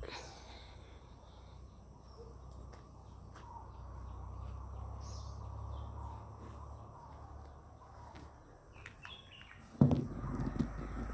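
Faint bird chirps over a low steady outdoor rumble, with a few light clicks and scrapes. Near the end comes a sudden clatter, the loudest sound, as a plastic container is handled.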